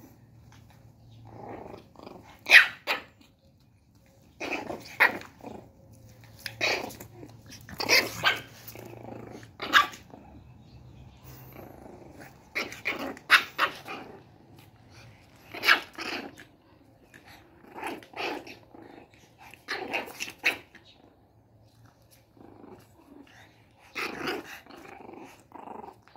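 A one-month-old shih tzu puppy and an adult shih tzu play-fighting: small growls broken by about a dozen short, sharp yaps and barks spread through the stretch.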